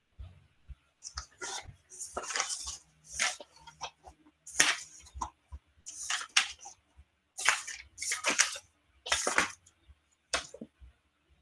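Handling noise close to the microphone: a string of short rustling, crackling bursts, about one a second.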